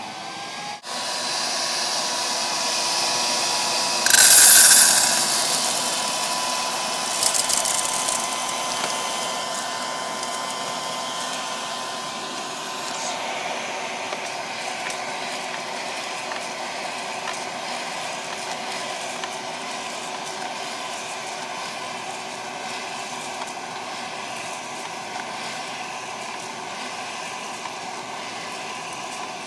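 West Bend Poppery hot-air popcorn popper's blower running steadily, roasting green coffee beans. About four seconds in there is a loud rushing clatter, and a shorter one a few seconds later, as the beans go in. After that the blower runs on a little quieter, with the faint ticking of beans tumbling in the hot air.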